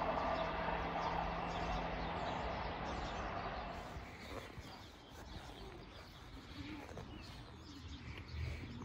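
A passenger train's engine hum and rumble, fading away over the first three or four seconds; after that, quieter outdoor ambience with birds chirping.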